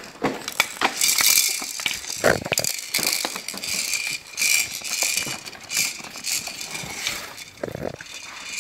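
Plastic toys on a baby's activity center rattling and clicking irregularly as the baby grabs, bats and spins them.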